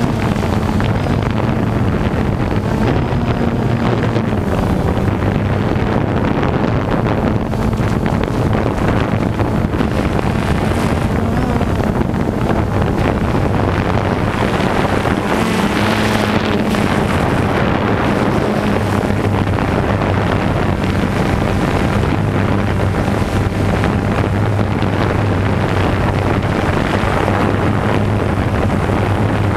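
Multirotor drone's motors and propellers buzzing steadily in flight, heard from the onboard camera, with a constant low hum and wind buffeting the microphone.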